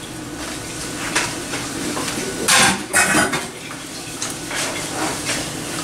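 Metal utensils clattering and scraping against a stainless steel pot and a frying pan as noodles are scraped out of the pot and stirred in the pan with a fork, over a steady low sizzle from the pan. The loudest clatters come about two and a half to three seconds in.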